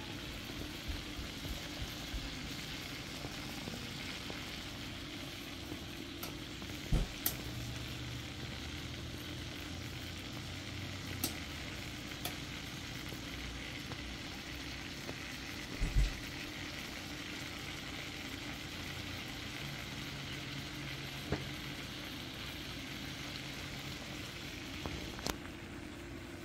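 Marinated meat sizzling as it fries in a pan: a steady hiss, with a couple of knocks about seven and sixteen seconds in.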